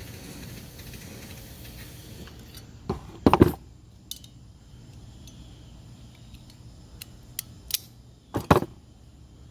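Sharp metallic clicks and clacks of hand tools working a thin stainless steel clamp strip, loudest in two short clusters, one about a third of the way in and one near the end, with lighter ticks between.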